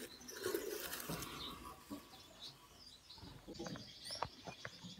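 Faint rustling and small clicks of a hand moving through the hay and paper of a nest box, with a few faint, short, high chirps from Gouldian finches.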